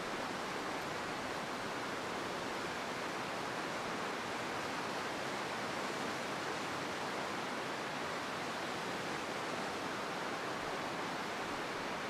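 Steady, even rush of a tall, partly frozen waterfall, water still falling through the ice.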